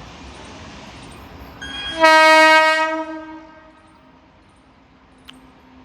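Indian Railways train horn sounding one loud, steady blast about two seconds in, held for about a second and then fading away, over a steady background rush of noise. A single sharp click near the end.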